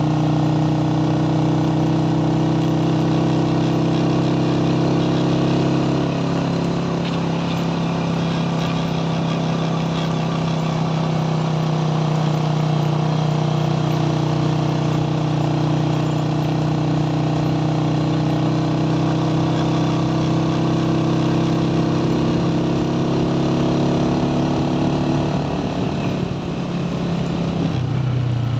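Small motorcycle engine running at a steady cruising pace while being ridden, with a constant pitched engine note. The note shifts about six seconds in and changes again near the end, as the throttle eases.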